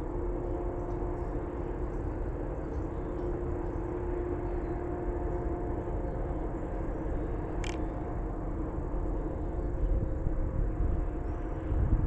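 A vehicle running steadily, a low rumble with a faint steady hum, and one short sharp tick about two-thirds of the way through.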